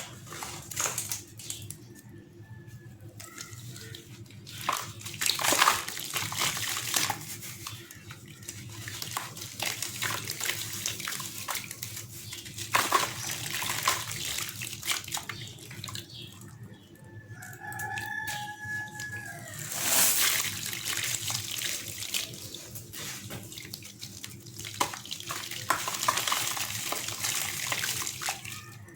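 Gritty sand-cement chunks crumbling into water, with crackling, grainy crumbles and watery splashes that rise and fall in waves.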